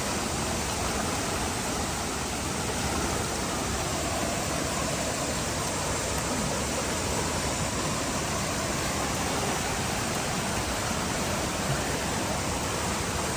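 Rushing water of Minneopa Creek, a steady, even rush that holds at one level throughout.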